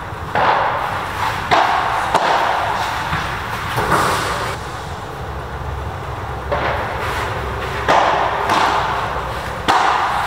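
Padel rally: sharp pops of rackets striking the ball, with ball bounces, coming every second or so and briefly echoing, with a lull of about two seconds in the middle.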